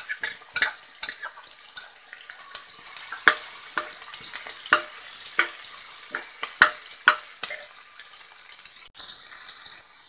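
Sliced onions, ginger and whole spices sizzling in hot oil in an aluminium pressure cooker, with a metal spoon clinking and scraping against the pot as they are stirred. Near the end the clinks stop and only the steady sizzle goes on.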